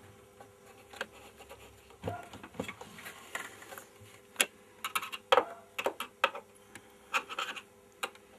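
Irregular clicks, knocks and scrapes of hands and a screwdriver working on the case of an old 16 mm sound projector while it is being screwed into its cabinet. The sharpest knocks come a little past the middle. A faint steady hum runs underneath.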